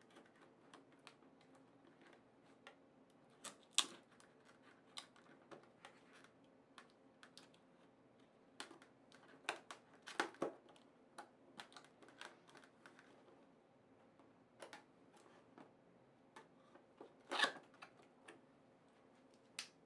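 Small knife cutting and scraping at the seal stickers on a cardboard box, with scattered faint clicks and taps of fingers and blade on the box. The strongest scrapes come about 4, 10 and 17 seconds in.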